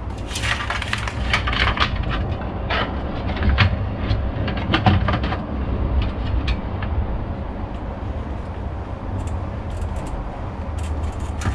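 Clicks, knocks and scraping of a PC power supply unit being pushed into a tight-fitting computer case, busiest in the first six seconds and sparser after, over a steady low hum.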